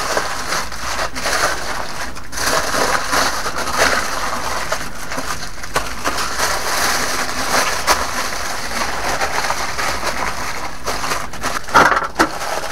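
Beef steaks sizzling and crackling on a barbecue grill: a steady hiss with many small pops.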